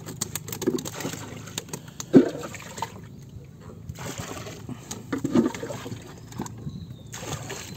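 Water lapping and trickling against a small wooden outrigger boat, with a quick run of small clicks and knocks in the first couple of seconds and a few brief murmurs.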